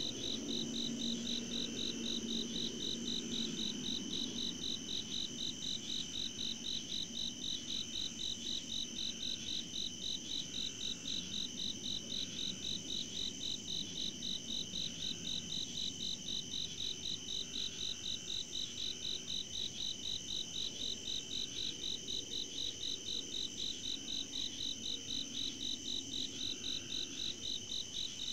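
Night insects: crickets chirping in a steady, even rhythm of about three chirps a second over a continuous high trill. A faint low rumble sits underneath in the first few seconds.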